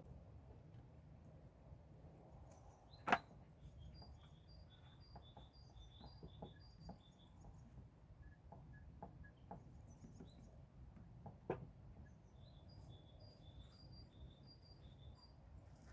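A small songbird singing quietly, two runs of short chirps alternating between two high notes, over a low steady rumble. A sharp knock sounds about three seconds in and another near the end, with lighter ticks between.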